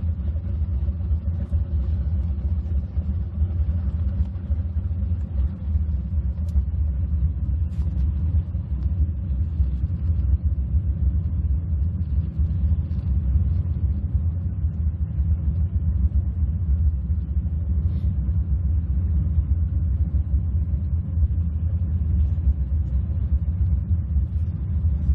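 Twin engines of a Fountain Lightning powerboat running steadily under way, a deep even rumble.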